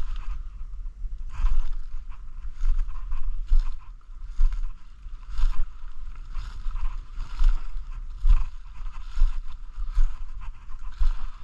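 Footsteps crunching and swishing through dry leaf litter at a slow walking pace, about one step a second, over a steady low rumble.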